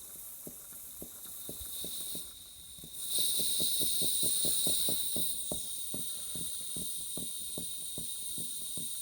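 Clevedon Steam Libra twin-cylinder model steam engine running on compressed air while being bedded in: regular exhaust beats over a steady hiss of air. About three seconds in the hiss gets louder and the beats quicken from about two to about four a second.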